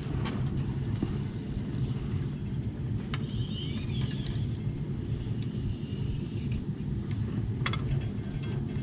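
Steady low rumble of a hot-water boiler heating system running under test after an expansion tank swap, with a few light clicks and faint high squeaks.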